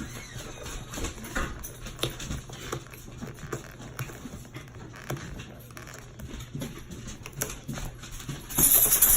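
Handling of a small plastic product and its packaging: scattered light taps and clicks, and a louder crinkling rustle near the end.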